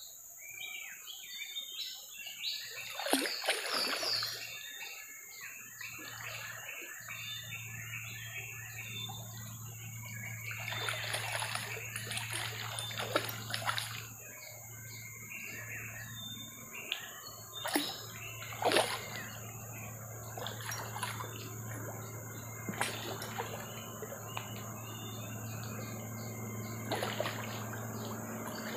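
A large patin (Pangasius catfish) thrashing at the water's surface close to the bank as it is reeled in, splashing in several bursts.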